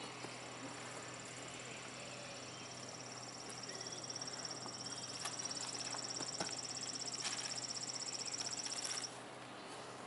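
An insect trilling steadily in a high, rapidly pulsing tone. It starts about three seconds in and stops abruptly near the end, with a few soft ticks beneath it.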